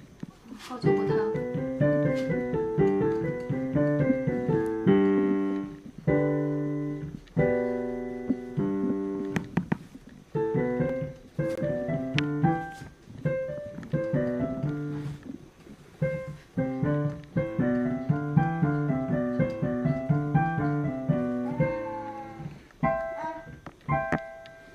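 Solo piano playing a gentle piece in rolling broken chords, phrase after phrase with brief pauses, thinning to a few single high notes near the end.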